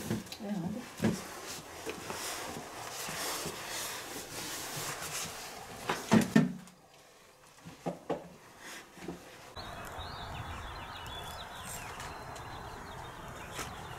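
Shuffling footsteps and a rollator walker's wheels and frame clicking and knocking on a tiled floor, with a few louder knocks about six seconds in. After about nine and a half seconds the sound changes abruptly to a steady outdoor background hiss.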